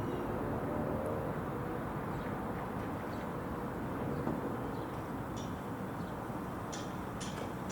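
Steady, distant rumble of a Boeing C-17A Globemaster III's four Pratt & Whitney F117 turbofan engines as the aircraft flies overhead, with a few faint high ticks in the second half.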